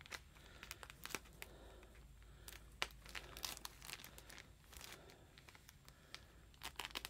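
Clear plastic bag around a skein of cotton yarn crinkling as it is handled and cut open with small scissors: faint, scattered crinkles and sharp clicks.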